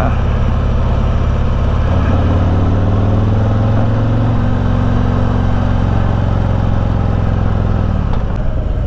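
Harley-Davidson Tri Glide Ultra trike's Milwaukee-Eight 114 V-twin running while under way. The engine note grows stronger about two seconds in, holds steady, then eases off near the end.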